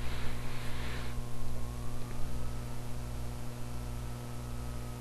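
Steady electrical mains hum with a faint hiss underneath, with a short stretch of slightly louder hiss in the first second.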